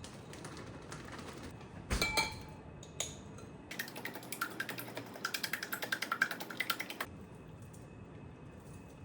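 Kitchen utensils at work: a single clink with a short ring, then a quick run of light, even clicks, about six a second, for about three seconds.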